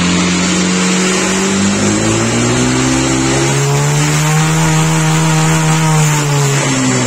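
Honda PCX150 scooter's single-cylinder four-stroke engine run at full throttle with the rear wheel spinning free, reaching an indicated 140 km/h. The engine note dips about a second and a half in, then climbs steadily over several seconds and eases back near the end.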